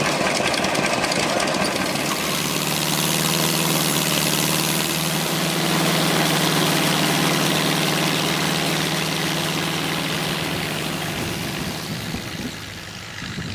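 1931 Gleaner combine running with its Ford Model A engine and threshing machinery, a steady mechanical din with a steady engine drone from about two seconds in. It eases off a little near the end.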